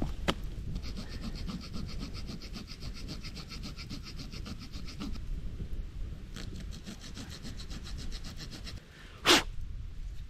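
A hand tool working wood in two runs of rapid, even rasping strokes, the first lasting about four seconds and the second shorter, as in carving a wooden fork. A single sharp knock comes near the end.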